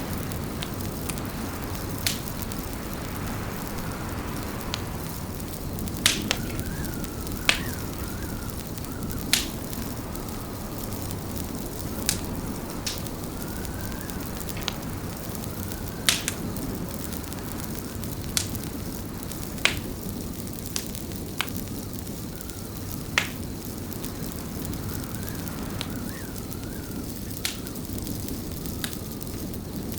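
Fireplace crackling: sharp, irregular pops every second or few over a steady low rumble of burning wood.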